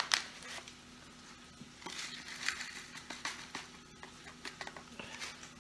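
A paper packet of dry onion soup mix rustling as it is handled and poured into a small plastic measuring cup, with a sharp click at the start and scattered light clicks and rustles after.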